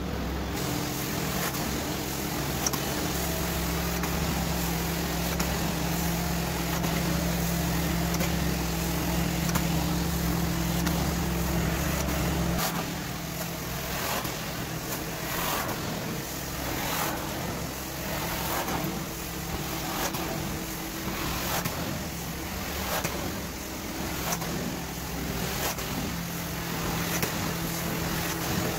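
Carpet-cleaning extraction wand running over carpet: a steady rush of vacuum suction over a steady machine hum. About halfway through the deepest part of the hum drops away. From then on the suction surges briefly roughly once a second as the wand is pulled in strokes.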